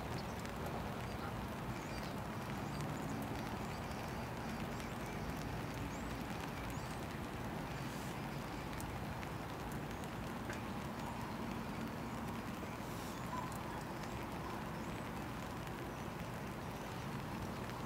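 Distant CN diesel freight locomotives running with a steady low rumble, under a constant wash of wet-weather noise.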